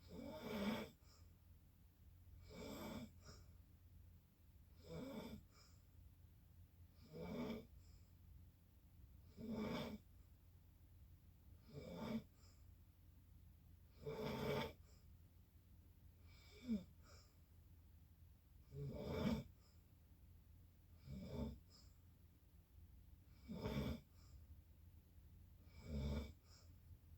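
Snoring in a steady rhythm, one snore roughly every two and a half seconds, about a dozen in all.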